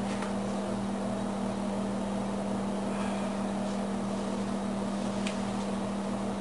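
A steady, unbroken low hum with one strong tone, from a running fan, appliance or electrical source, with a couple of faint clicks.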